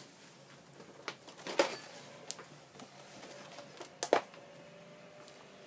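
Hand tools being handled at the workbench: a few sharp clicks and knocks, the loudest a little after a second and a close pair about four seconds in.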